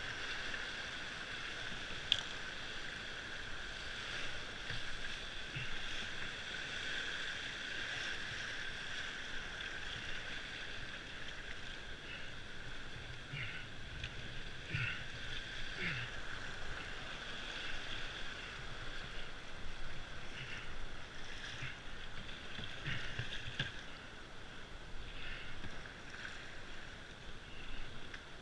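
Whitewater rapids rushing steadily around a solo open slalom canoe, with short splashes from paddle strokes now and then and a single sharp knock about two seconds in.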